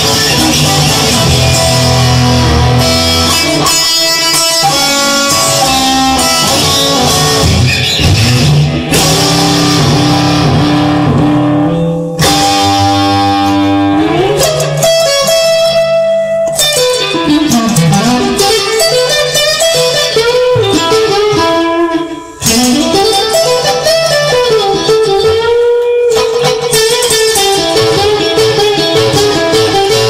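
Rock music led by electric guitar, played without vocals. Through the second half, long held lead notes bend and slide up and down in pitch.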